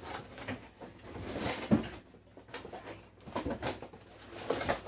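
Cardboard rustling, scraping and knocking as a boxed stand mixer is wrestled out of its shipping carton, with a sharp thump a little under two seconds in.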